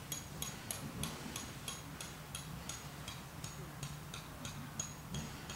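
Faint high chirps repeated at an even pace, about three to four a second, from a small animal, over a low steady hum.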